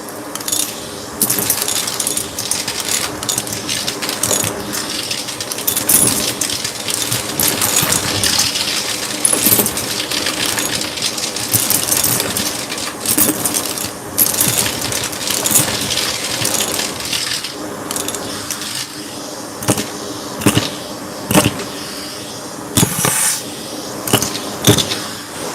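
Shark vacuum cleaner running with a steady motor hum under dense crackling and rattling as debris is pulled through it. Near the end come a few separate louder surges.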